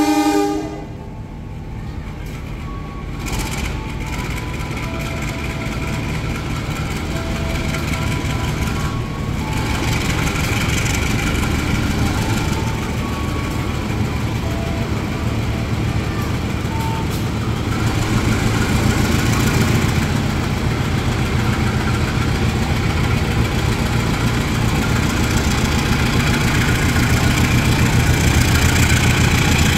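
Diesel-electric locomotive engine running at idle, then growing gradually louder about two-thirds of the way through as it throttles up to pull the passenger train out.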